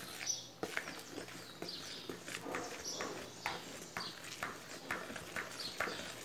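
Panettone dough being mixed by hand in a bowl after the flour goes in: irregular soft knocks and scrapes, roughly two a second, as the thick dough is worked.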